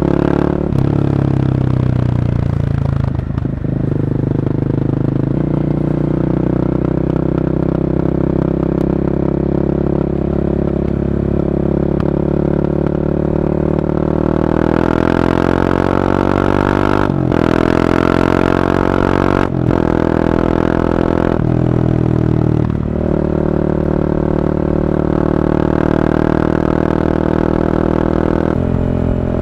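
Honda CB300R's single-cylinder engine through an Akrapovic carbon slip-on exhaust, heard while riding. It holds a steady note, then revs up through the gears about halfway in, with brief breaks at the shifts, and settles back to a steady cruise.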